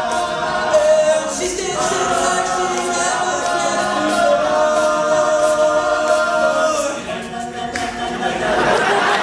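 All-male a cappella group singing held chords over a steady beat of sharp ticks. About eight seconds in the singing stops and the audience starts cheering and whooping.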